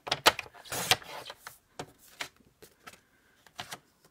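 Sheets of paper and card being handled: a burst of rustling and sliding in the first second and a half, then a few light taps.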